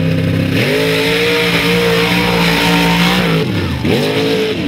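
Mud-racing buggy's engine revving hard and held at high, steady revs with a loud rushing noise over it. About three and a half seconds in the revs drop briefly, then climb again.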